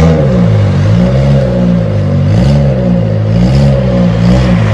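A home-built car sound system in a hatchback's trunk, with horn midranges and tweeters, playing loud bass-heavy music. A deep bass tone slides up and down in pitch about once a second under short, sharp high hits.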